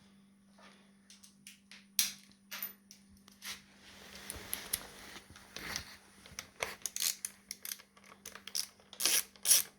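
Hand tools and screws handled in a wheel's split rim, with scattered clicks and taps, then a ratchet clicking in quick, regular strokes that grow louder near the end as the rim screws are tightened.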